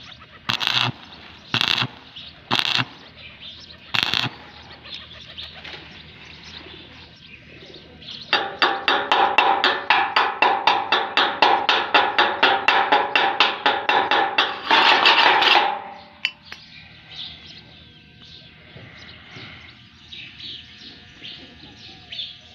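Stick-welding arc struck in a few short crackling bursts while tacking a steel tube joint. About four seconds later a chipping hammer taps rapidly on the welds, about six strikes a second for some seven seconds, knocking off the slag, and ends in a second of continuous scraping noise.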